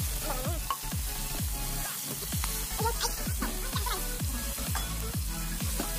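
Electronic dance music with a steady kick-drum beat of about two thumps a second, over batter-coated chicken drumsticks sizzling as they fry in hot oil.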